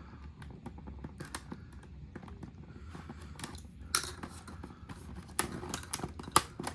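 A collectible toy box being opened by hand: scattered clicks, scrapes and rustles of the packaging, busier from about four seconds in.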